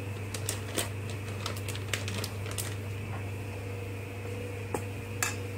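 Scattered light clicks and crinkles of kitchen handling over a steady low hum.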